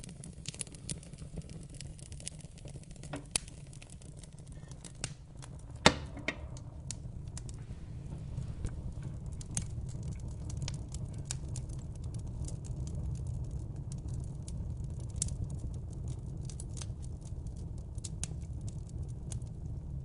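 Wood fire burning: a steady low rumble of flames under frequent sharp crackles and pops from the burning logs, the loudest pop about six seconds in.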